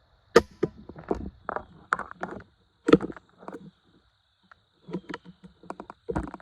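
Footsteps crunching and rustling through dry leaf litter and twigs on the forest floor, irregular steps starting with a sharp snap.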